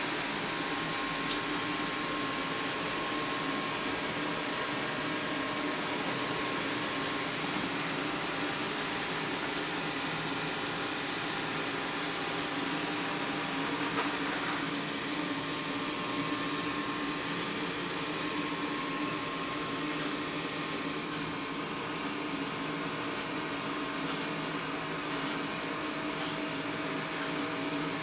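Xiaomi Mi robot vacuum running with a steady whir and hum as it drives back onto its charging dock at the end of its cleaning cycle.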